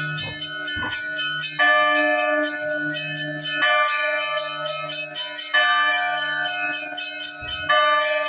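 Bells ringing: a fresh chord of several bell tones is struck about every two seconds, four times, each ringing on over a low steady hum.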